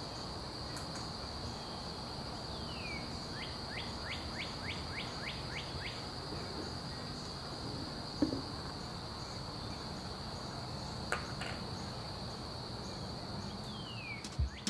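An insect chorus with a steady high-pitched drone over a low outdoor hiss. A run of about eight quick chirps, roughly three a second, comes a few seconds in, with a couple of faint clicks later.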